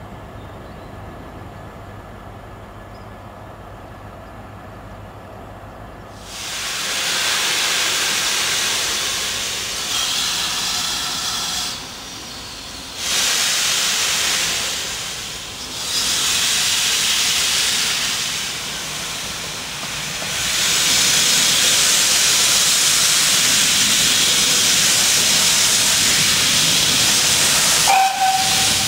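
GWR 57xx pannier tank locomotive venting steam: a loud hiss that sets in after a quiet start and comes in several surges, then holds steady and loudest for the last several seconds. A brief high note sounds just before the end.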